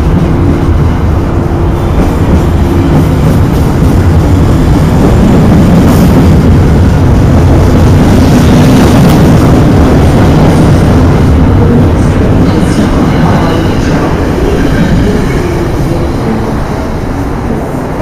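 NJ Transit Comet passenger coaches rolling past close by as the train departs: a loud, steady rumble of wheels on rail that builds to a peak mid-way and fades near the end as the train pulls away.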